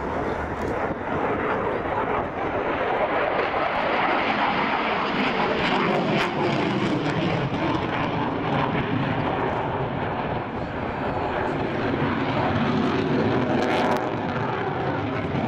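Dassault Rafale fighter's twin Snecma M88 turbofan engines: loud, continuous jet noise as the aircraft manoeuvres overhead, growing harsher a few seconds in and staying strong to the end.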